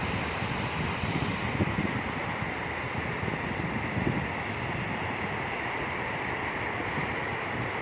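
Sea waves washing in, a steady rush of surf, with wind buffeting the microphone in short low gusts.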